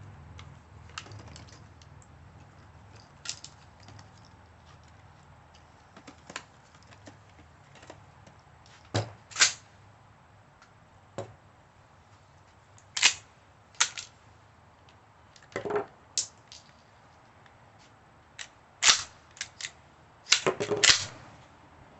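A string of 12-gauge shotgun shots. Faint reports come first, then loud ones from about nine seconds in, some in quick pairs and a fast cluster near the end.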